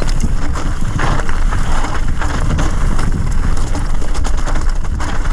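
Wind buffeting the microphone of a helmet-mounted camera, mixed with the crunch and rattle of mountain bike tyres rolling fast over loose rocky gravel. A steady, dense noise with a heavy rumble.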